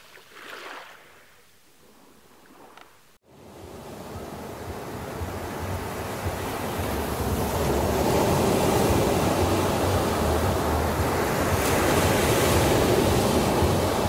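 Sea waves: faint lapping of small waves at first, then, after a sudden cut about three seconds in, louder surf of small waves breaking and washing ashore. The surf builds over the next few seconds and then holds steady.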